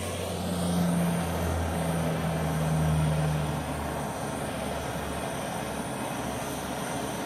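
Electric heat gun blowing steadily, a continuous rush of air with a low motor hum that is strongest in the first few seconds and then fades.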